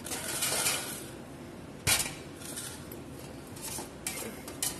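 Stainless steel box grater being handled in a perforated stainless steel basin: a scraping, rustling stretch, then one sharp metal clank about two seconds in, and a few light clicks near the end.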